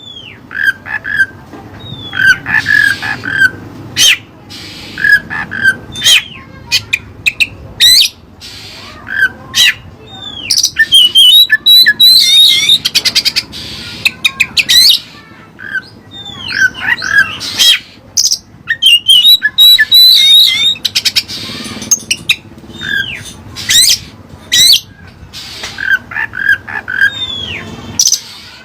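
Oriental magpie-robin (kacer) singing loud and without a break: sharp clicking notes, whistled phrases sliding up and down, and bursts of rapid twittering. It is a varied, mimicry-filled song of the 'isian Cililin' kind.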